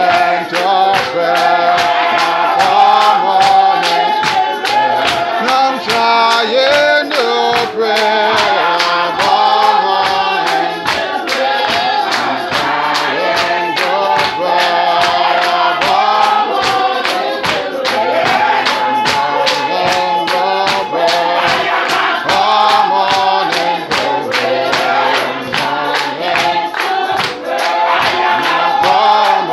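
A congregation singing a gospel spiritual together in chorus over a steady percussive beat, about two to three beats a second.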